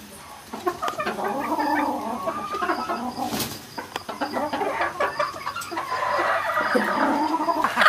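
Several gamefowl hens clucking and calling over one another.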